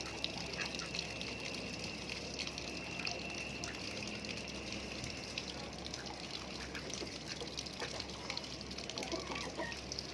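Ducks quacking over steady rain, with many small drop ticks and a steady high whine that stops about halfway through.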